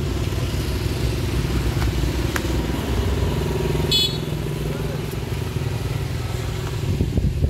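Motorcycle engine running close by, a steady low rumble. A brief high tone sounds about four seconds in.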